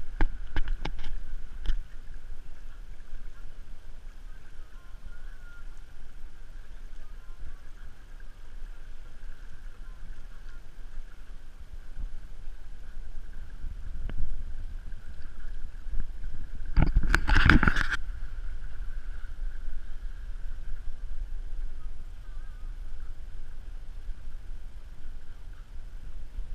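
Sailboat moving under sail through open water: a steady rush of water along the hull and wake, with wind buffeting the microphone. A few sharp clicks come at the start, and there is one louder whoosh of about a second a little past halfway.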